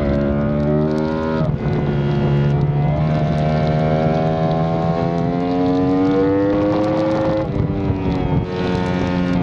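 Yamaha R1 inline-four sport-bike engine pulling hard on a race track, with wind rush. The revs climb steadily and drop back briefly at each upshift, a few times in all.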